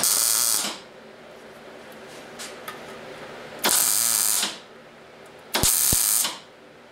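Wire-feed welder striking three short tack welds, each arc burst lasting under a second: one at the start, one about three and a half seconds in, and one just before six seconds.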